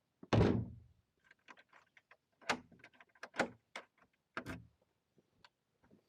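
A handful of sharp knocks with small clicks between them. The loudest comes about a third of a second in and dies away briefly, and three more follow a second or so apart.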